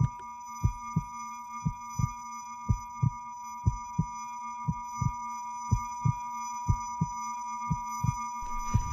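Heartbeat sound effect: a slow, even lub-dub, about one double beat a second, under steady high electronic tones. A hiss swells in near the end.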